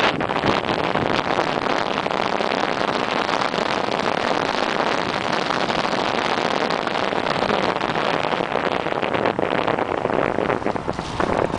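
Steady rushing noise of wind over the microphone mixed with the rolling and rattle of a bicycle coasting fast downhill on rough, cracked asphalt, easing a little near the end.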